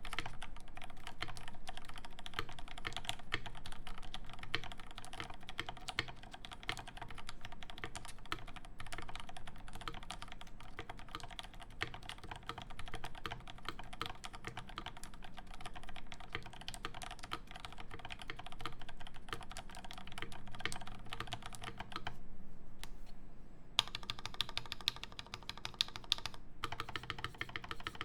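Steady fast typing on a Rama M60-A Tank Edition keyboard with lubed Zelaios V1 Redux switches and GMK keycaps: a dense run of key strokes. The typing pauses briefly about 22 seconds in, then resumes.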